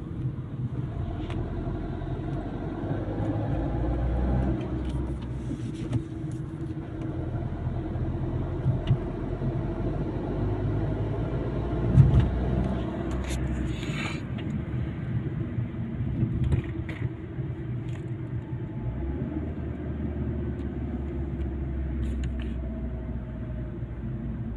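Cabin sound of a warm Fiat Egea's 1.3 Multijet four-cylinder turbodiesel driving at low revs: a steady engine drone and road rumble with a very faint injector chatter. The mechanic takes the chatter for a faulty injector spraying too much fuel. There is a single thump about halfway through.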